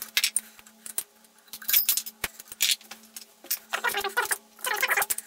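Steel clamping parts and tools clinking and rattling as a milling setup on a rotary table is taken apart. The sound is a string of sharp metal clicks, with short jangling clusters around four seconds in and again near the end.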